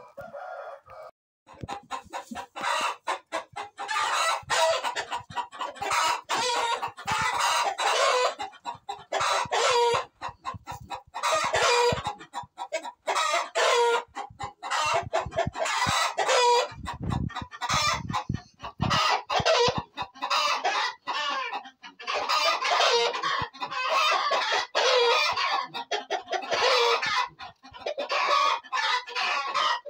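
A flock of chickens clucking and calling densely over one another, with roosters crowing among them. The calling starts about a second and a half in and goes on without a break.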